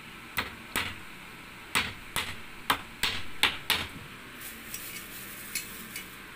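Claw hammer striking nails into a wooden strip: about eight sharp strikes in the first four seconds, then a few fainter clicks.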